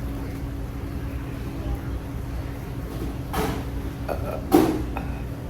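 A person burping loudly about four and a half seconds in, with a shorter, softer noisy sound about a second before it.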